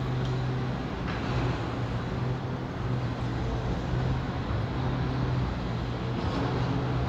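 Heavy demolition machinery's diesel engine running steadily under a constant low hum, with a few faint knocks.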